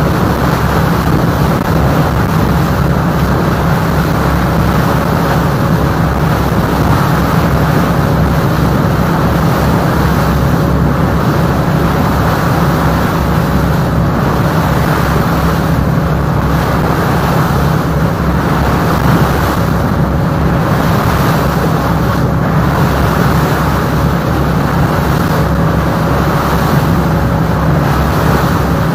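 Chao Phraya Express Boat's diesel engine running steadily under way, a loud, even drone.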